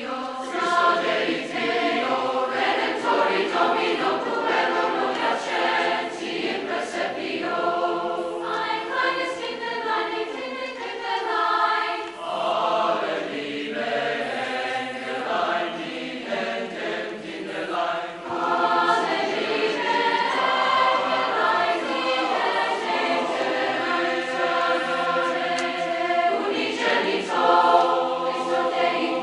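A large mixed choir of junior-high voices singing in harmony, with sustained notes and two brief breaks between phrases.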